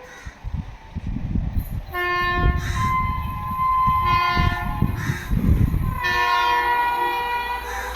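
WAP7 electric locomotive's horn blowing, one blast starting about two seconds in and another about six seconds in, over the low rumble of a train running past.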